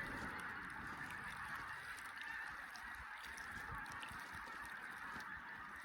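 A flock of birds honking in a continuous chorus, steady throughout.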